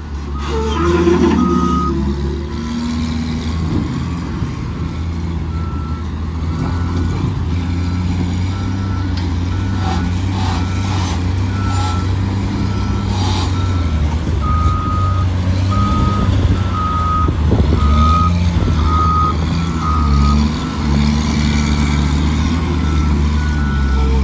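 Caterpillar wheel loader's diesel engine running under load with its reverse alarm sounding a steady series of beeps as it backs up; the beeping stops about 20 seconds in and starts again near the end.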